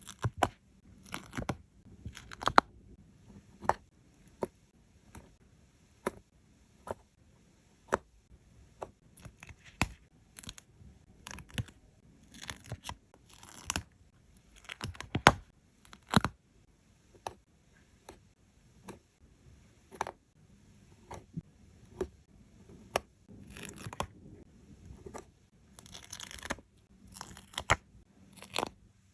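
Stickers and paper pieces being handled: short papery peels and rasps among irregular sharp taps and clicks as pieces are pressed down, with a longer rasp near the end.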